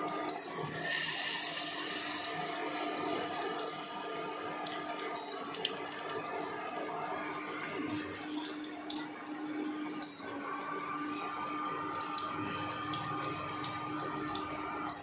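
Batter-coated oyster mushroom pakoras deep-frying in hot oil in a small kadhai: a steady sizzle with many small crackles.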